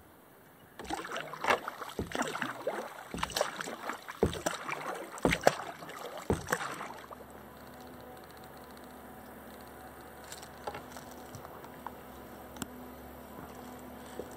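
Kayak paddle strokes: the blade dips and splashes in the water about once a second, with a sharp knock at each stroke. The paddling stops about seven seconds in, and the kayak glides on with only a faint steady hum.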